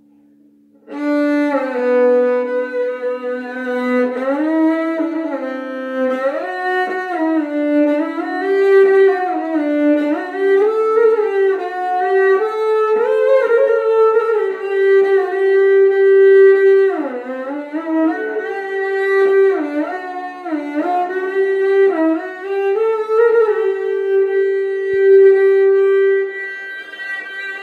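Music: a solo bowed string instrument plays a melody of held notes that slide from one pitch to the next. It starts about a second in.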